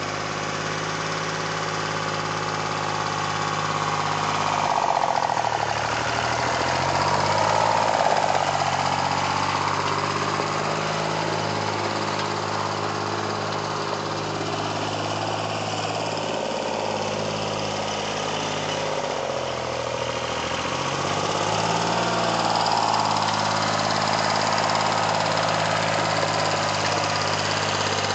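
Rebuilt Yanmar 336D tractor diesel engine running steadily. Its speed dips and picks back up twice.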